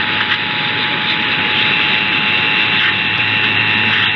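Heavy hiss and static from a weak AM radio signal, with the faint steady two-tone EAS attention signal underneath. A thin high whistle joins about a second in.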